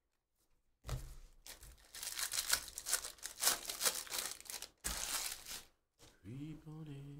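Foil wrapper of a Bowman Draft baseball jumbo pack being torn open and crinkled: a run of crackling rips lasting about five seconds. Near the end comes a brief hummed voice.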